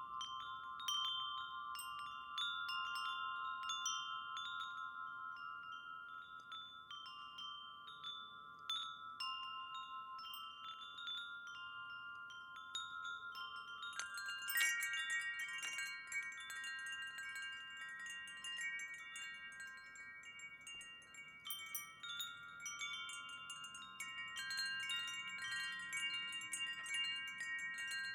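Wind chimes ringing, struck at irregular moments, several tones overlapping and ringing on. About halfway through, a flurry of strikes brings in brighter, higher tinkling and extra tones.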